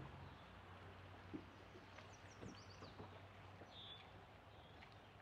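Near silence with a faint steady low hum. A few faint, high bird chirps come about two seconds in, and another short one near four seconds.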